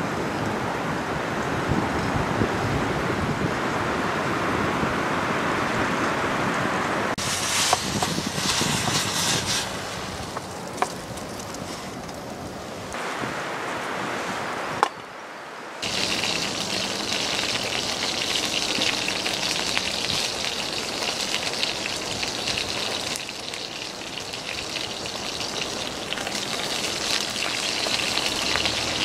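Food sizzling in a frying pan over a small camp fire, a steady hiss that breaks off and resumes abruptly several times, with a few light clicks.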